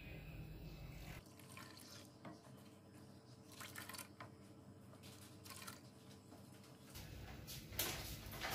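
Faint sloshing and light scraping of a ladle stirring milk and tea in a steel pan, with small clicks of the ladle against the pan; near the end, a louder splash of liquid being poured in.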